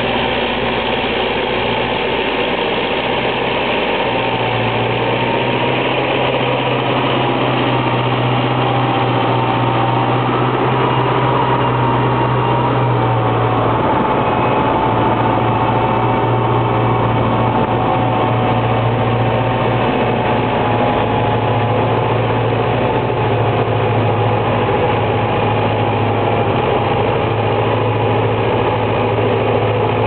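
Belarus MTZ 952.3 tractor's diesel engine running steadily under load as it pulls a three-furrow reversible plough through wet ground. A low hum grows stronger about four seconds in.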